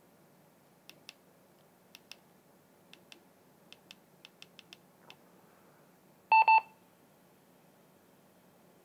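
Retevis RB637 walkie-talkie's buttons being pressed, a string of light clicks, then two quick electronic beeps from the radio about six and a half seconds in as its button steps it between modes.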